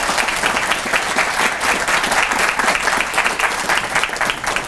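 An audience in a hall applauding steadily, many people clapping at once, welcoming a speaker to the podium. The clapping eases off just after the end.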